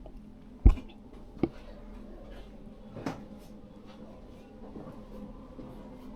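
Two sharp knocks about three-quarters of a second apart, the first the loudest, then a fainter knock about three seconds in, over quiet room tone.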